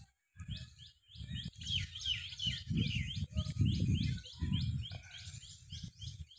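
A bird calling in a quick series of short chirps, about three a second, over a low, uneven rumble of wind on the microphone.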